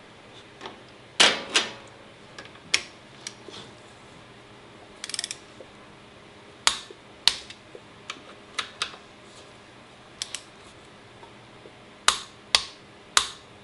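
Irregular sharp metallic clicks and clinks from a ratchet and a torque wrench working on brake caliper bolts, a few at a time with pauses between, the loudest about a second in and a quick run of three near the end.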